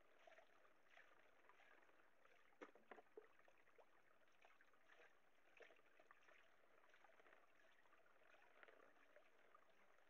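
Faint water sloshing in a gold pan as it is swirled and tilted during panning, with small scattered splashes, the sharpest a little under three seconds in.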